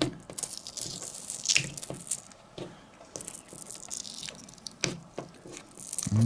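Fingertips and nails picking at and peeling the edge of a vinyl decal off a truck's painted body panel: scattered small ticks, sticky crackles and brief scratching sounds. A voice begins a rising 'ooh' right at the end.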